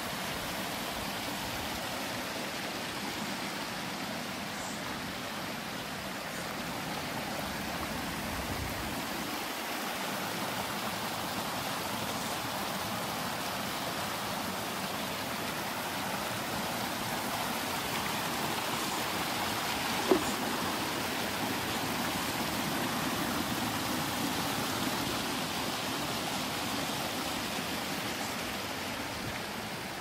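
Small mountain stream splashing and flowing steadily, a continuous even rush of water. A single sharp click stands out about two-thirds of the way through.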